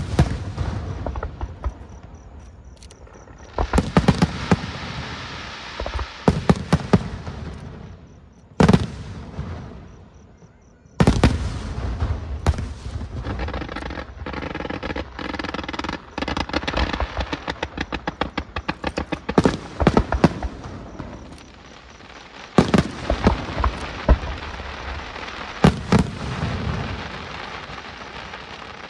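A fireworks display: aerial shells burst with loud bangs, and a long stretch of dense, rapid crackling runs through the middle.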